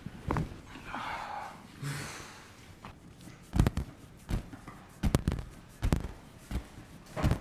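A series of about six sharp knocks at a fairly even pace, roughly one every 0.7 seconds, from hands-on chiropractic work on a patient's body, after a short breathy rush of sound early on.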